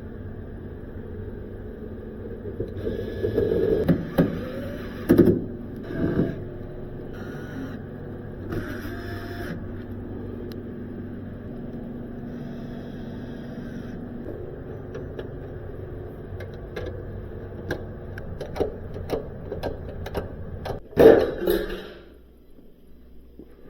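A steady mechanical hum with clicks, knocks and clatter of handled tools and fittings; the hum stops about 22 seconds in, just after the loudest clatter.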